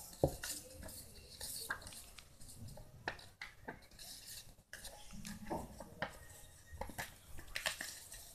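Stiff card paper rustling and crackling as it is bent along its scored fold lines, with scattered light clicks and taps on a hard board.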